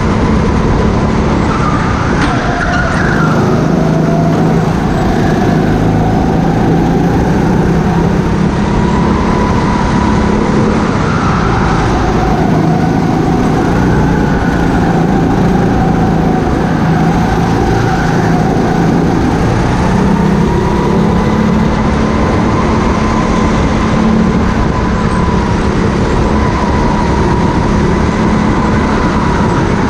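Rental go-kart's motor running at speed, heard from on board, its pitch rising and falling again and again as the kart accelerates down the straights and slows into the corners.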